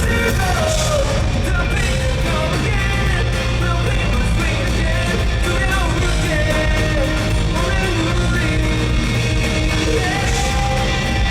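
Live rock band playing loudly, with a male lead singer's voice over the band.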